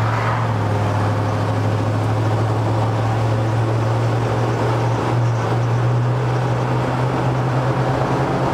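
Old Chevrolet C10 pickup cruising at road speed: a steady low engine drone under wind and tyre noise, the drone edging up in pitch about halfway through.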